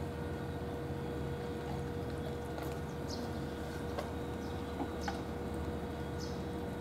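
Two cats eating wet food from bowls: a few faint, short chewing clicks spread over several seconds, over a steady low rumble.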